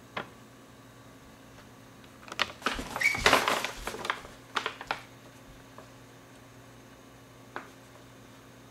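A large sheet of crumpled, watercolour-painted paper rustling and crinkling as it is handled and held up. The rustle comes in one burst lasting about two and a half seconds, with a single light click near the start and another near the end.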